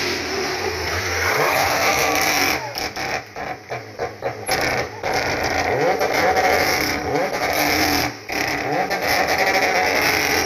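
Renault Clio rally car's engine revving hard through a tight hairpin, the throttle chopped on and off in quick succession about three to five seconds in, with the revs sweeping up again repeatedly as it accelerates out.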